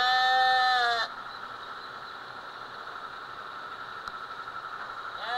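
A sheep bleating twice: one long baa ending about a second in, and another starting near the end, each rising in pitch at the start and dropping as it ends.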